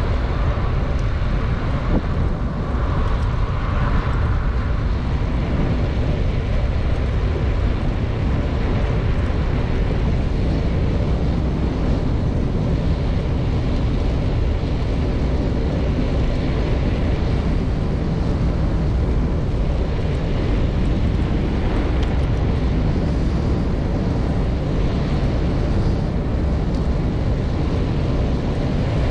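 Steady low rumble of wind on the microphone with road noise, as from a camera on a moving bicycle.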